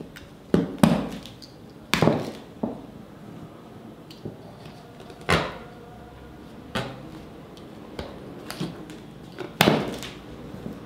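A small knife cutting a woody cordyline cane into short pieces, giving about eight irregular sharp cracks and knocks as the blade goes through the stem.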